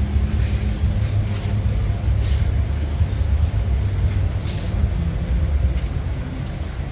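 Low, steady rumble of race car engines idling, with a short hiss about four and a half seconds in.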